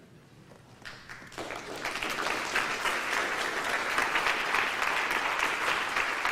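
Audience applauding. It begins with a few scattered claps about a second in, then builds within a second into steady applause.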